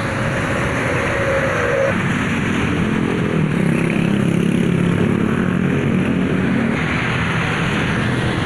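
Bus diesel engine running, its low drone growing stronger about two seconds in, over steady road traffic noise.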